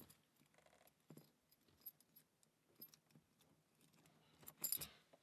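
Mostly near silence broken by faint, scattered small metallic clicks of lock-picking tools and shims being handled, with a brief louder clatter a little before the end.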